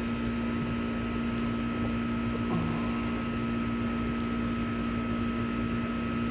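Steady background hum, a low drone with a fainter high whine above it, even and unchanging throughout.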